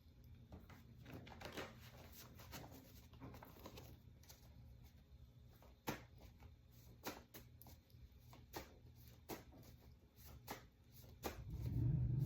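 Tarot cards being handled: scattered light clicks and taps at an irregular pace. About a second before the end, a steady low hum sets in and becomes the loudest sound.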